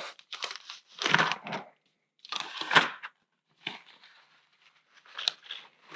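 Gloves being pulled off the hands: about five short rustling, peeling bursts a second or so apart.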